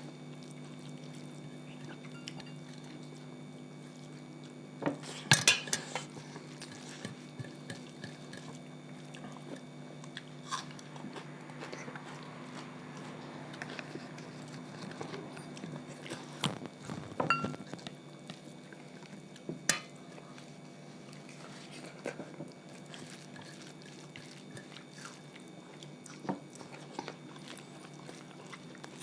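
Two people eating a meal of rice, dal and roti: chewing with scattered clinks and clatters of plates and utensils, the loudest cluster about five seconds in, over a steady low hum.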